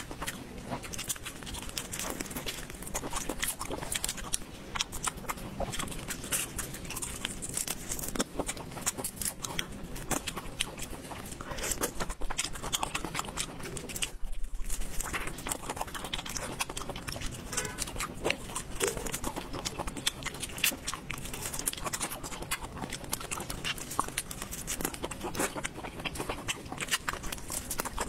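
Close-miked eating sounds of marinated raw shrimp: dense crackling and snapping as the shells are pulled apart by plastic-gloved hands, mixed with wet mouth sounds of chewing and sucking.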